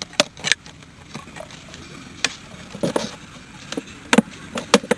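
Irregular sharp clicks and knocks, several a second and unevenly spaced.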